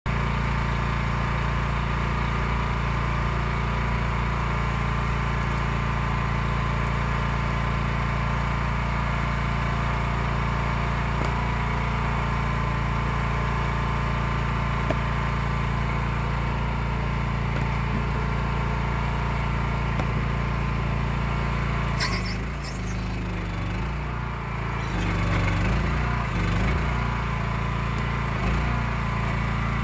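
Eastonmade 12/22 firewood processor's engine running at a steady speed. About three-quarters of the way through there is a sharp knock, then the engine note dips and wavers for a few seconds as it comes under hydraulic load, before settling back.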